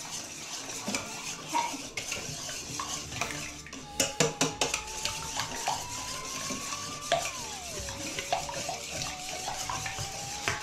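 Wire whisk stirring runny cake batter in a stainless steel mixing bowl, scraping and clinking against the metal, with a quick run of sharp clinks about four seconds in.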